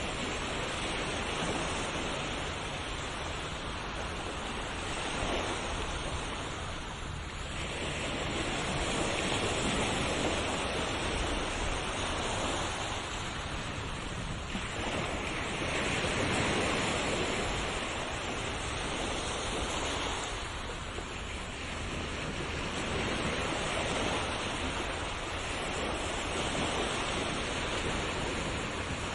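Ocean waves breaking and washing on a shore in slow, even surges about every six to seven seconds, a continuous rushing surf.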